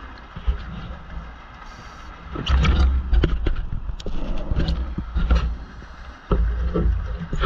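Exhaled bubbles from a scuba diver's regulator, heard underwater: a bubbling gurgle with clicks, in two bursts. The first starts about two and a half seconds in and lasts about two seconds; the second starts near the end, with quieter breathing between them.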